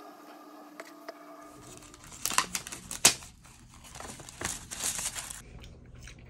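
Plastic packaging crinkling and crackling, with the sharpest cracks two to three seconds in, after a quiet start with only a faint steady hum.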